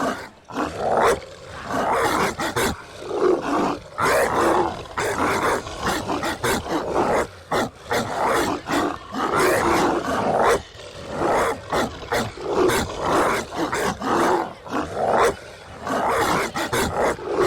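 Dogs barking in quick, repeated bursts, with some growling.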